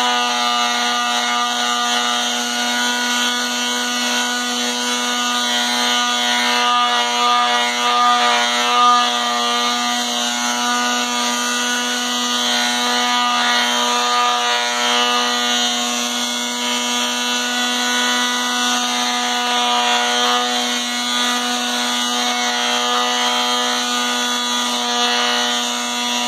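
Electric palm sander running at a steady speed, its motor giving a constant hum, with the sandpaper pad pressed against the sole of a bare foot.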